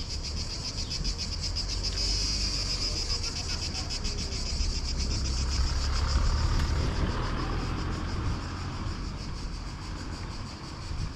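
Cicadas buzzing in a steady, fast-pulsing drone, while a car passes, loudest about six seconds in.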